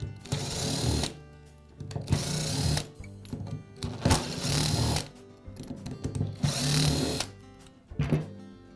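Power screwdriver running in four bursts of about a second each, then a brief one near the end, backing out the screws that hold the gear case cover on the angle grinder.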